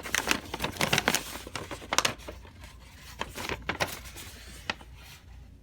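Paper rustling and crinkling as it is handled, busiest for the first few seconds and then dying down.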